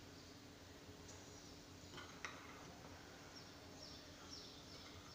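Near silence in a small kitchen: two faint clicks of a metal spoon against a bowl about two seconds in, and a few faint, high, falling chirps.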